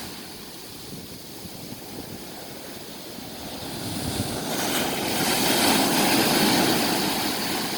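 Sea surf washing onto the shore: a lull, then a wave building from about halfway through and breaking loudly, easing off a little near the end.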